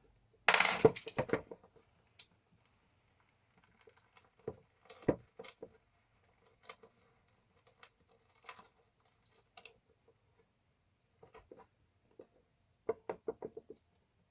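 Hand work on a cable and crimp lug: a brief rustling scrape about half a second in, then scattered clicks and taps of small metal parts and tools, with a quick run of clicks near the end.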